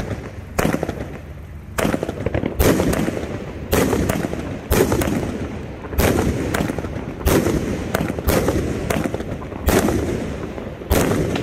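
36-shot 500 g consumer firework cake firing shell after shell: sharp bangs about one a second, each shell breaking with a loud report and a fading crackly rumble.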